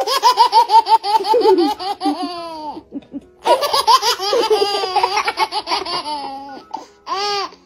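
A baby laughing hard in quick repeated bursts of giggles, in two long runs with a short break about three seconds in, then one short high vocal sound near the end.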